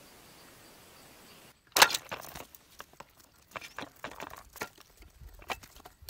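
A single sharp snap about two seconds in, then a run of scratching, clicking and scuffling. This is a homemade Coca-Cola can and popsicle-stick bird trap springing shut, with the caught bird struggling in it.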